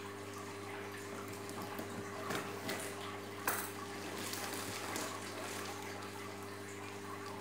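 Plastic wrap and packing tape crinkling and tearing as a taped cardboard box is opened by hand, with a few sharp clicks about halfway through. A steady low hum runs underneath.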